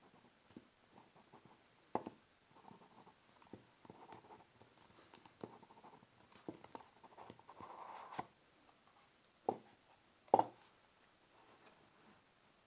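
Hands handling packaging at close range: light scratching and rustling, with a few sharp knocks, the loudest about ten seconds in.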